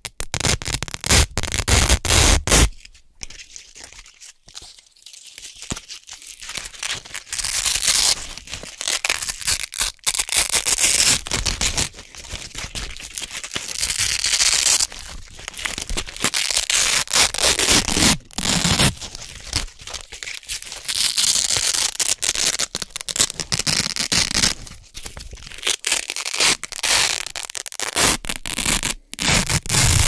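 Hook-and-loop (Velcro) fastener strips peeled apart by hand again and again, each pull a crisp, crackling rip. The rips are loudest in the first few seconds, ease into quieter, slower peeling for a few seconds, then come back in repeated runs.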